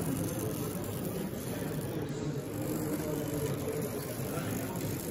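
Steady hall ambience with the light mechanical rattle of a model LMS steam locomotive and tender running along the track.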